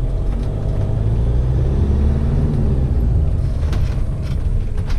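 Laika Kreos 7009 motorhome's engine running as it drives slowly, heard from inside the cab: a steady low rumble whose pitch rises for a second or two as it picks up speed. A few light knocks come near the end.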